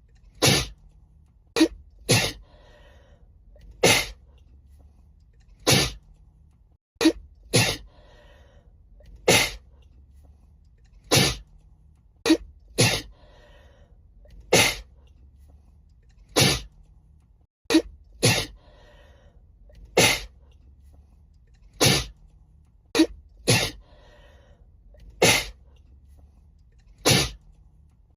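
A woman sneezing over and over in a fit, about twenty sharp sneezes spaced one to two seconds apart, some with a short breath after. The same run of sneezes repeats as an edited loop.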